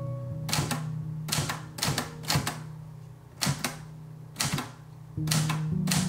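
Olivetti Lettera 35 manual portable typewriter being typed on slowly, about seven separate key strikes at an uneven pace, each a sharp clack. Background piano music underneath gets louder near the end.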